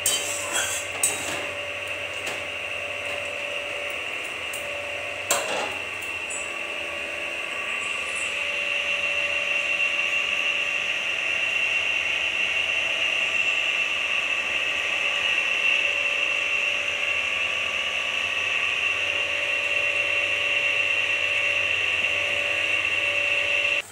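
Steady sizzle of fried potatoes cooking in spiced masala and oil in an aluminium kadai, with a few metal clinks of the spatula on the pan at the start and a single knock about five seconds in.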